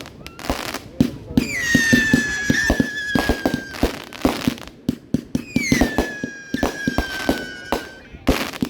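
Fireworks going off in a rapid series of sharp bangs and crackles. Two long whistles from whistling fireworks each fall in pitch and then hold steady for about two and a half seconds, one starting about a second and a half in and the other about five seconds in.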